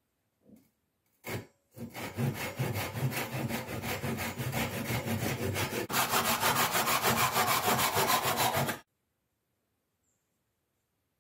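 Hand saw cutting through beech wood with quick, regular back-and-forth strokes. It grows louder and brighter about six seconds in and stops suddenly near the end.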